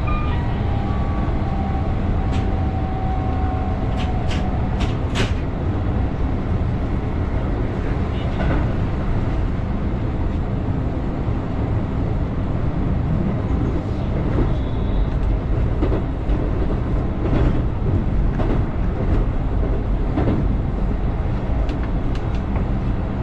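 Keihan 8000-series electric train running along the line, heard from on board: a steady low rumble of wheels and running gear, with sharp clicks, a quick cluster of them about four to five seconds in and a few more scattered later.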